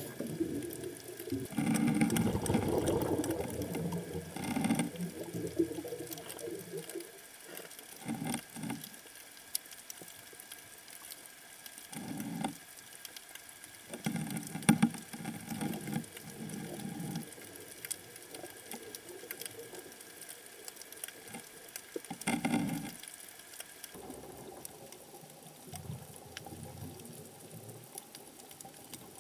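Underwater sound on a coral reef: a steady fine crackling, typical of snapping shrimp, broken every few seconds by rumbling bursts of bubbles from a scuba diver's exhaled breath, the longest near the start and in the middle.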